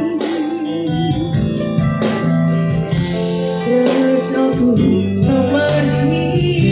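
Live band music amplified through PA speakers, a guitar melody to the fore over keyboard, with a woman singing.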